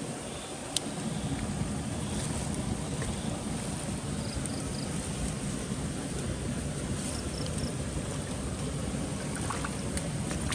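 Steady rain falling: an even hiss with no letup. Faint groups of three short high chirps come twice, and there is one sharp click just under a second in.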